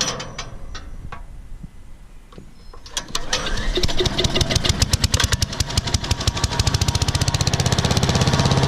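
Briggs & Stratton 1150 Series 250 cc single-cylinder engine on a Troy-Bilt chipper shredder, pull-started. It catches about three seconds in and settles into fast, steady running as it warms up.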